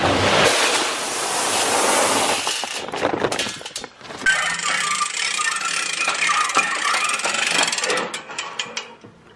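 Dry shelled deer corn poured from a paper sack into a metal feeder barrel: a loud, steady rattling hiss of kernels hitting the steel, in two long pours with a brief break about four seconds in, refilling a game feeder.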